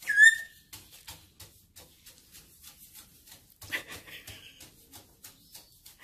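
Black-headed caique giving one sharp whistle that falls in pitch right at the start, then a rough short call about four seconds in. In between, light irregular taps from its feet hopping on the wooden dresser top.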